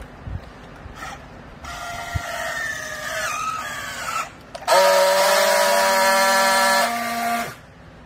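Battery-powered handheld strapping tool working a plastic strap on a clothes bale: a motor whine about two seconds in whose pitch sags as the strap tightens, then a louder steady buzz from about five seconds in as the tool friction-welds the strap, cutting off sharply near the end.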